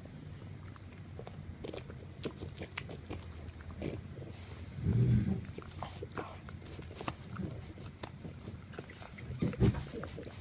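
Dog gnawing and chewing on a chew stick, with many small clicks and wet mouth noises as its teeth work the stick. Two louder, short low grunts come about five seconds in and near the end.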